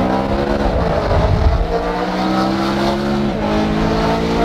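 Car engine and exhaust under hard acceleration: the revs climb, fall sharply at an upshift about a second in, climb again and drop at a second upshift near the end.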